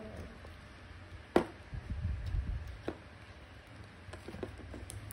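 Handling of clear plastic tubs of toy slime: a sharp click about a second and a half in, a softer one about three seconds in, and a few light taps and handling noises near the end.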